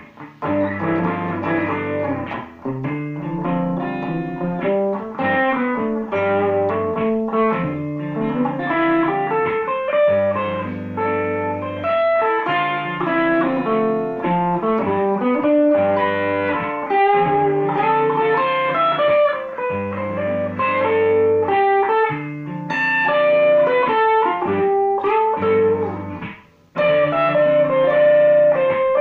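Electric guitar improvising a quick single-note line over a looped backing of guitar chords on a ii–V progression. The sound cuts out briefly near the end, then the loop and the line come back in.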